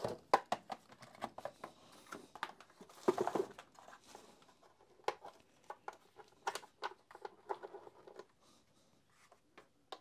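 Plastic bag crinkling and plastic parts clicking as a power-supply adapter and its cable are handled and plugged in: a run of short rustles and taps that thin out after about eight seconds.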